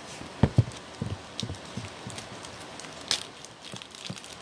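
Two dull thumps about half a second in, then scattered crinkling and crackling of a clear plastic bag as a charging cable inside it is handled.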